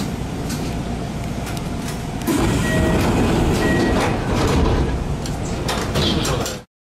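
Kintetsu 1000 series electric train running, heard from inside the front cab: a steady rumble with sharp clacks of the wheels over the points, growing louder about two seconds in. Two short beeps about a second apart, and the sound cuts out abruptly near the end.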